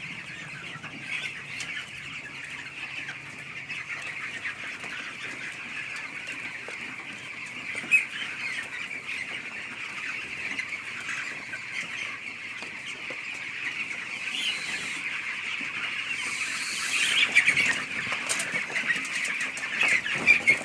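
A flock of 15-day-old broiler chicks peeping continuously in a dense chorus, growing louder toward the end, with a brief rustle about three-quarters of the way through.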